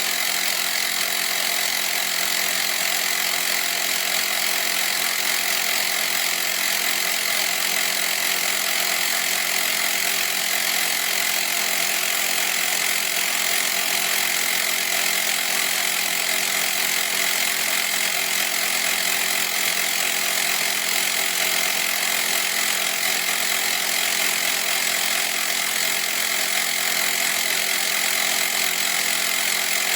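CYCPLUS rechargeable 12 V portable electric tyre inflator with its small compressor running steadily without a break: a constant mechanical drone with a hissing edge.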